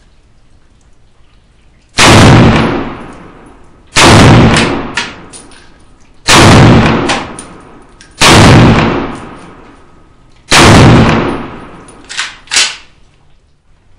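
Five rifle shots from a Molot VEPR semi-automatic rifle in 7.62x54R, fired about two seconds apart, each one loud with a fading echo. Two lighter knocks follow shortly after the last shot.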